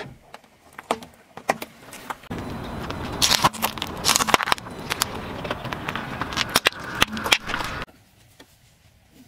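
A car tyre rolling slowly over small objects on asphalt and crushing them: scattered clicks, then a long stretch of dense crackling and sharp pops over the low sound of the tyre and car moving. It goes much quieter shortly before the end.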